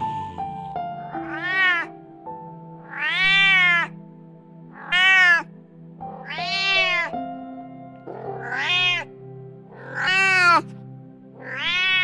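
Domestic cat meowing over and over: seven meows about every one and a half to two seconds, each rising and then falling in pitch.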